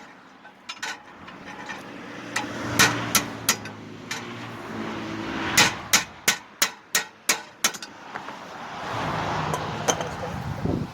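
Repeated hammer blows in irregular runs, at times about three strikes a second, during work on a car's axle. A vehicle runs by in the background.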